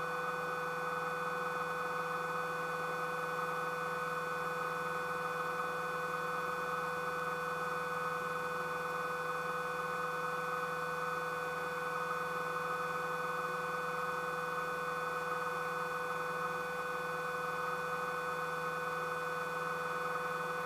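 Light single-engine aircraft in cruise, heard through the cockpit audio feed: a steady engine and propeller drone with several constant tones that do not change.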